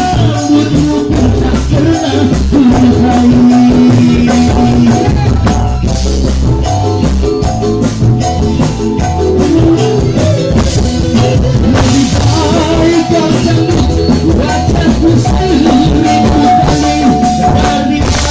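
Live dangdut band music: electric keyboard and guitar over a steady drum beat, with long held melody notes.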